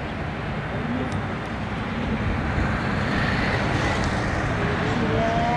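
Airbus A380-841's Rolls-Royce Trent 970 jet engines on final approach: a steady rushing noise that grows gradually louder as the airliner nears.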